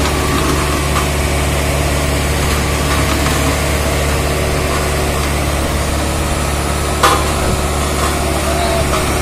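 HAMM HD99 tandem roller's diesel engine running steadily, with a single sharp knock about seven seconds in.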